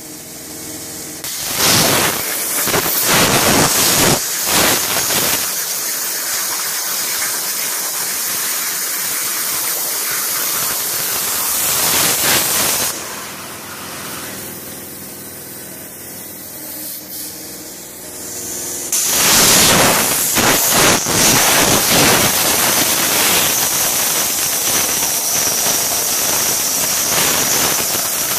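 Hypertherm MAXPRO200 plasma torch on a CNC cutting table, its arc cutting steel plate with a loud, steady hiss. The hiss eases for several seconds around the middle, then comes back loud with a steady high whine on top.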